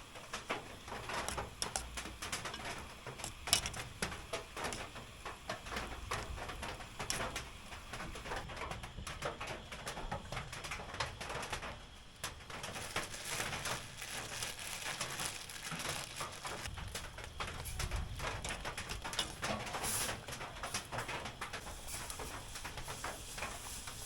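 A dove cooing over an irregular patter of small ticks and drips.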